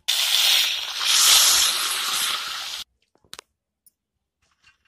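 Small chelwa fish, coated in spice paste, tipped into hot mustard oil in a kadhai: a loud sizzle that cuts off suddenly about three seconds in.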